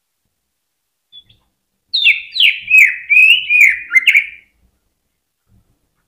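Cucak ijo (green leafbird) singing: a faint short note, then a loud burst of about six quick slurred notes that swoop down and up, lasting about two and a half seconds.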